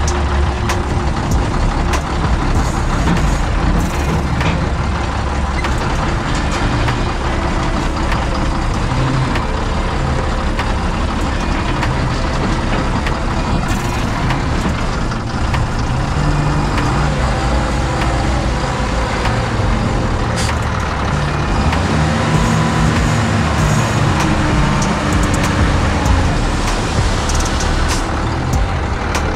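Loaded dump truck's diesel engine running steadily under way, its pitch shifting up and down with speed and load.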